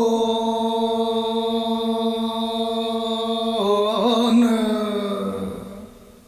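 A man singing a dhamal folk song holds one long, steady note for about three and a half seconds. His voice then makes a short turn in pitch and fades out near the end.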